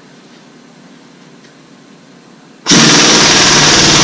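Pneumatic impact wrench hammering as it turns the screw of a ball joint press, pressing a new wheel stud into the wheel hub. It starts suddenly about two-thirds of the way in and keeps going.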